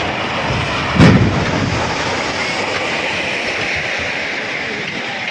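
An under-construction concrete cable-stayed bridge collapsing into a river: a continuous heavy rumble, with one loud crash about a second in as a section comes down, then rumbling on.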